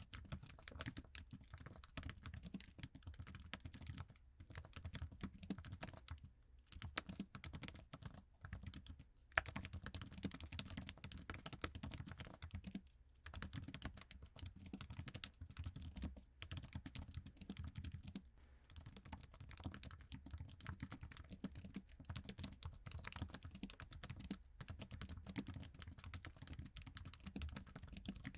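Continuous typing on the stock iMac keyboard: a dense run of light key clicks, broken by brief pauses every few seconds.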